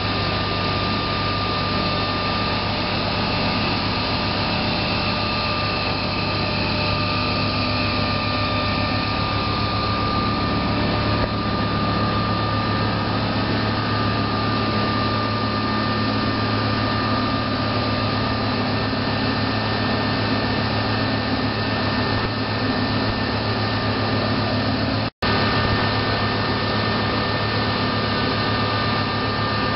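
Muller Martini 3601 book saw running steadily: a constant machine hum with a thin high whine over it.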